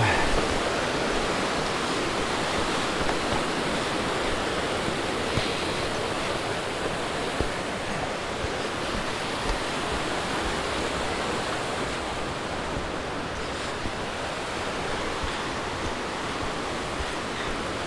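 The Gray Wolf River flowing: a steady, even rush of water.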